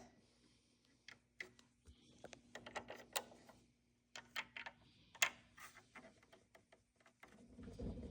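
Scattered light clicks and taps of small parts being handled. Near the end a denser low noise rises and grows louder.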